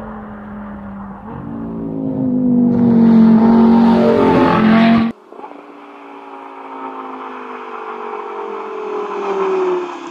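Audi R8's V10 engine through a sports exhaust, running hard at high revs as the car comes toward the camera and growing very loud, then cut off suddenly about five seconds in. A second approach follows, the engine note slowly falling in pitch while growing louder as the car nears.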